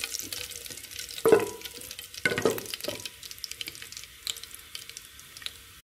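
Cumin seeds and whole dried red chillies frying in hot oil for a tadka: a steady crackling sizzle, with two brief louder noises about one and two and a half seconds in.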